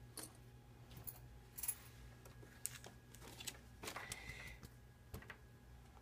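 Faint scattered clicks and rustles of fingers handling Cat5e twisted-pair wires and a plastic RJ45 keystone jack while the wires are laid into its slots. The sharpest click comes a little under two seconds in, and a short scraping rustle follows about four seconds in.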